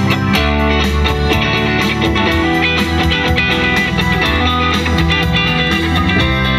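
Music with electric guitar over a steady bass line, played at an even, loud level.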